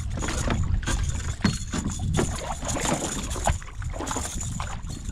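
A hooked bass thrashing and splashing at the surface right beside a kayak as it is pulled in to be landed by hand. The water sloshes irregularly, broken by short splashes and knocks.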